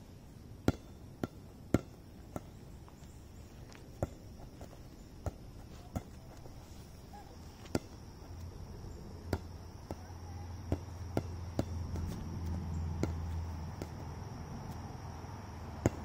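A stick knocking a small plastic ball on grass: sharp, irregular taps, about one a second.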